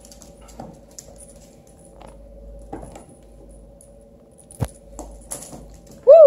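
Scattered light clicks, knocks and jingles as a beagle puppy and a kitten scamper and tussle on a hardwood floor, over a faint steady hum. Right at the end, a short loud 'woo' call that rises and then falls in pitch.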